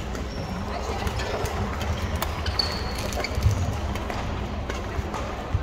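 Badminton rally: sharp pops of rackets striking the shuttlecock every second or two, the loudest about halfway through, with a brief high shoe squeak on the wooden court floor, over the steady background din of a busy sports hall.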